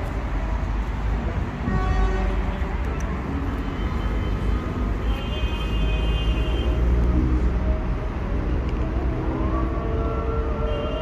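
Street traffic: a steady low rumble, with a few short horn-like tones over it, the longest starting near the end.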